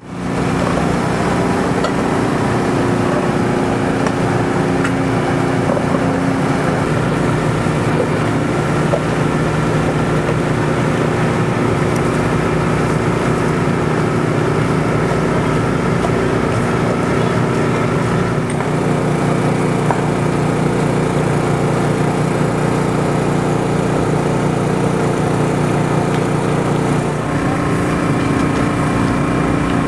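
An engine running steadily, its pitch shifting slightly about two-thirds of the way through and again near the end.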